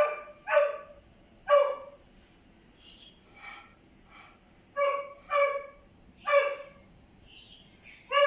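A dog barking in short, sharp, pitched barks in uneven bunches, loud ones with fainter ones between.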